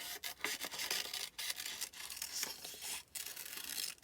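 Scissors cutting through paper, a run of scratchy snips with short pauses between cuts.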